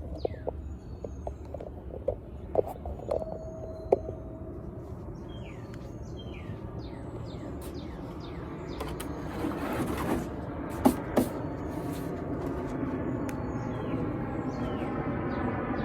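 Birds chirping over outdoor ambience, with a few sharp knocks, two of them close together about eleven seconds in. Over the last few seconds a steady engine hum grows louder.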